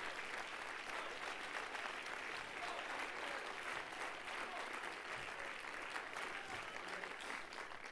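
Church congregation and choir applauding, a steady sustained clapping that eases slightly near the end.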